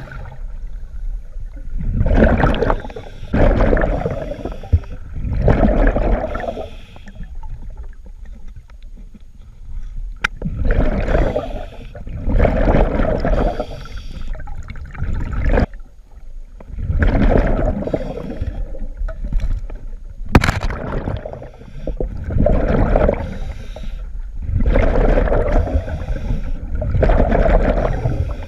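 A scuba diver breathing underwater: rushing, gurgling bursts of regulator breaths and exhaled bubbles, about a second long, often in pairs with pauses between. A sharp click about twenty seconds in, the loudest moment.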